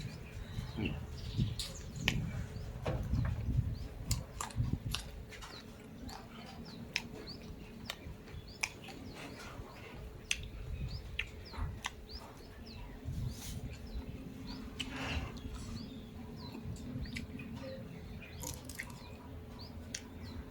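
A person chewing and eating, with irregular small clicks and mouth noises, while small birds chirp in the background.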